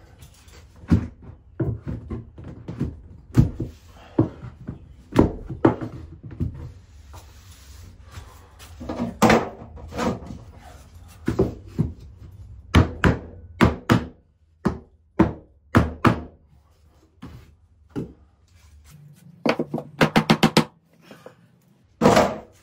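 Irregular wooden knocks and thunks as tongue-and-groove sauna ceiling boards are worked into place, with a quick run of about eight taps near the end.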